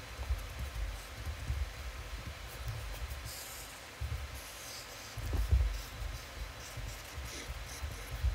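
Felt-tip marker drawing across paper in a series of scratchy strokes, mostly in the second half, with soft low thumps, the loudest about five seconds in.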